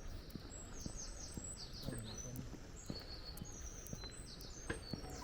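Small birds chirping and twittering: quick runs of short high notes, several falling in pitch, over a steady low background rumble.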